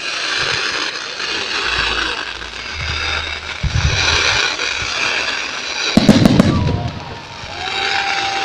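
Fireworks going off: a steady crackling of bursting shells, with low booms about four seconds in and a loud cluster of sharp bangs about six seconds in.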